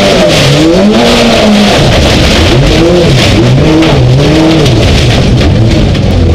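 Skoda Fabia Super1600 rallycross car's 1.6-litre four-cylinder engine, heard from inside the cockpit, revving up and falling back several times as the driver shifts and lifts through corners, dropping lower in pitch midway. Mud and gravel spray patter against the bodywork throughout.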